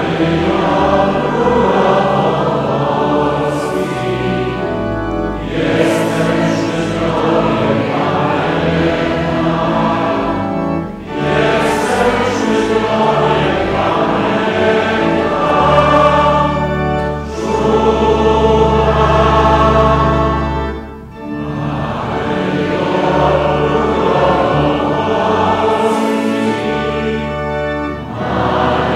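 A large congregation singing a hymn together in long held phrases, with short breaks between phrases and steady low tones sounding beneath the voices.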